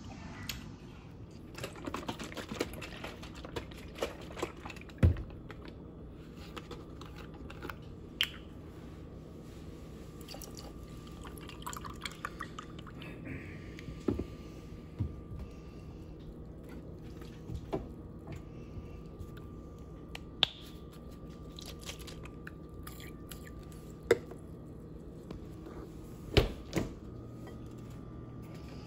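Eating at the table: scattered light clicks and clinks of utensils and dishes with chewing, a few sharper knocks standing out, over a faint steady hum.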